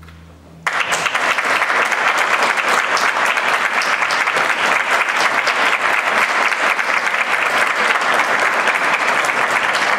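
Audience applause breaking out suddenly under a second in and continuing, dense and steady, as the last of the orchestra's final low chord dies away.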